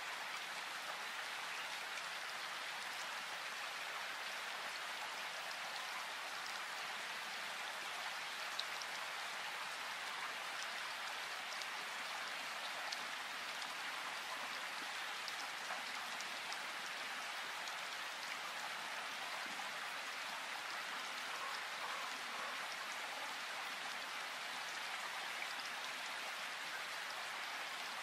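Steady rain falling in a forest: an even hiss with scattered sharp ticks of individual drops.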